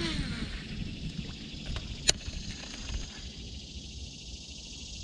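A cast with a baitcasting reel: line runs off the spool in a falling whir over the first second or so, and a single sharp click comes about two seconds in. Insects chirr steadily in the background.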